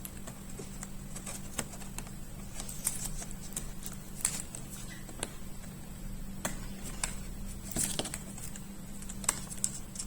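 Light, irregular clicks and taps of hands handling an opened laptop's internal parts while putting the battery plug back onto the motherboard, over a steady low hum.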